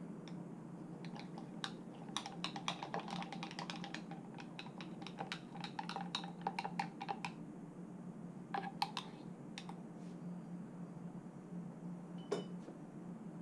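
A thin stick stirring coffee grounds and water in a glass mason jar for cold brew, clicking and tapping against the glass in quick dense runs, then a few scattered taps.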